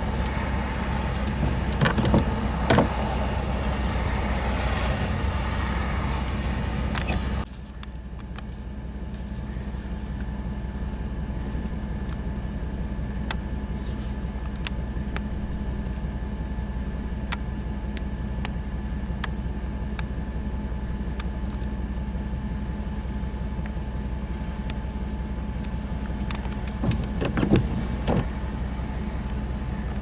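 Steady low rumble of a vehicle's running engine, heard from inside the cab, with wind noise over it. A few short knocks come near the start and near the end. About seven seconds in, the sound suddenly drops in level and loses its hissy top.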